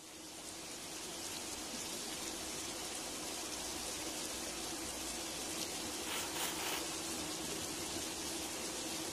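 A steady, rain-like hiss that swells up over the first second or two and then holds, with a faint steady low tone beneath it.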